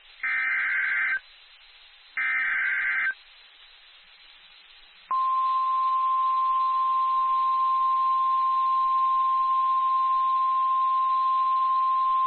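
Emergency Alert System header bursts from NOAA Weather Radio: two harsh digital data squawks about a second long each, a second apart. About five seconds in, the steady single-pitch 1050 Hz warning alarm tone starts and holds, which signals that a warning message is about to be broadcast.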